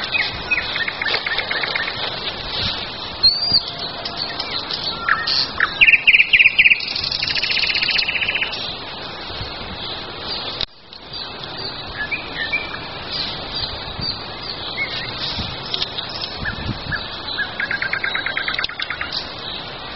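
Several songbirds singing: scattered chirps and whistled notes, with fast rattling trills. The loudest trills come about six to eight seconds in, and another comes near the end.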